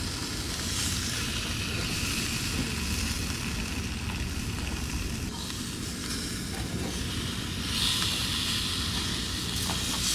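Perch fillets sizzling in a hot frying pan: a steady hiss that swells briefly near the end.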